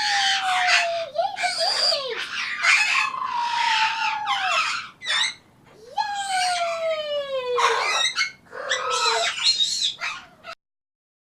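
Pet parrot calling: a run of long falling whistled calls mixed with harsh screeches. It cuts off abruptly near the end.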